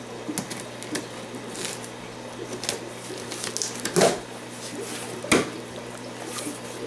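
Pocket knife slitting packing tape on a cardboard shipping box, with short scratchy scrapes and rustles. Two louder sharp sounds come about four and five seconds in as the cardboard is cut and the flap is pulled open.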